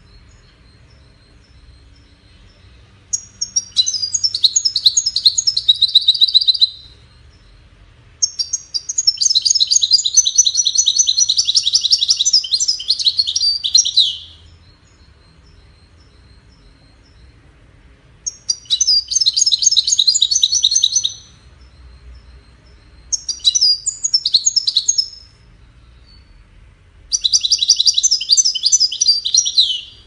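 European goldfinch singing: five bouts of rapid, high twittering song, each two to six seconds long, with faint single call notes in the short pauses between them.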